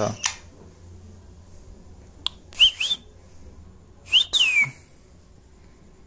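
Rose-ringed (Indian ringneck) parakeet giving two short whistled calls: a brief rising one, then a louder one that rises and slides down in pitch.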